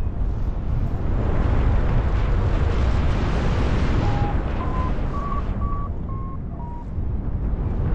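Wind buffeting the microphone in flight under a paraglider, a loud, steady rumble. Between about four and seven seconds in, a variometer gives six short beeps that step up in pitch and then ease back down: the chirp of a vario signalling climbing air.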